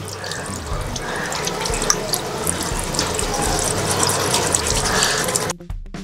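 Tap water running into a washbasin and splashing over hands rinsing bicycle disc brake pads. It stops abruptly about five and a half seconds in, leaving background music.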